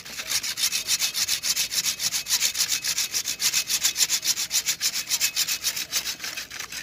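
Hand saw cutting through the thick woody root of a Melastoma (hoa mua) bonsai stock, back and forth in quick, even strokes, several a second.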